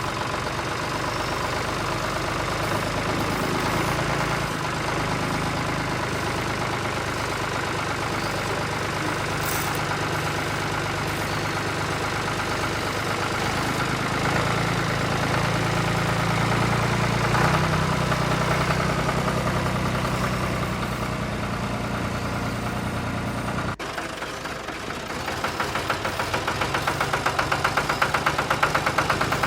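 Radio-controlled model construction machinery working: a steady, buzzing, engine-like drone from the models' motors and gearing. The sound breaks off suddenly about 24 seconds in and comes back with a more pulsing rhythm.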